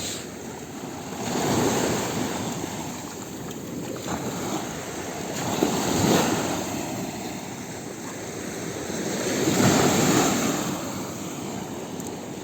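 Sea waves washing onto the shore, the surf swelling and fading three times, roughly every four seconds.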